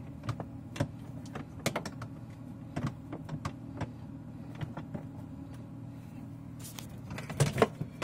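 Plastic clicks and knocks of an LG in-freezer ice maker assembly being pushed and slid against its mounting as it is worked back into place. They are scattered throughout, with a louder cluster near the end, over a steady low hum.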